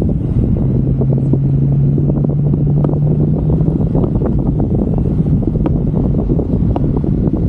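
Toyota Tacoma pickup driving through snow: a steady low rumble of engine and tyres, with scattered small clicks and a steady hum from about one to four seconds in.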